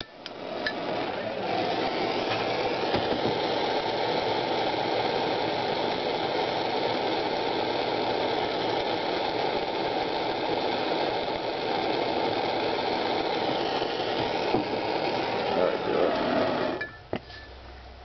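Handheld gas torch burning with a steady hiss, its flame held to a cigar to light it. The hiss cuts off suddenly near the end as the torch is shut off.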